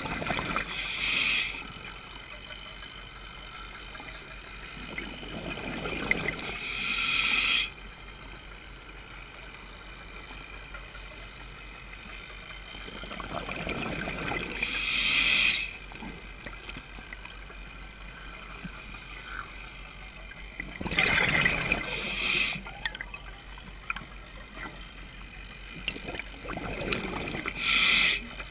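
A scuba diver breathing through a regulator: five breaths about six or seven seconds apart, each a swelling gurgle of exhaled bubbles that ends in a bright hiss, over a steady underwater background hiss.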